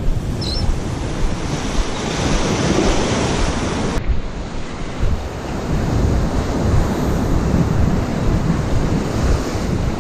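Ocean surf washing steadily, with gusty wind rumbling on the microphone.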